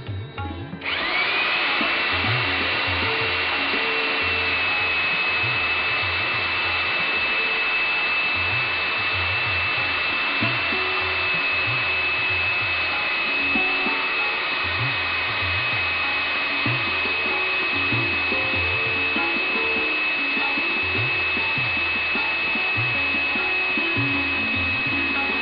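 Electric rock core drilling machine starting up about a second in, its motor whine rising quickly and then holding a steady high pitch as the water-cooled core bit runs in the rock block.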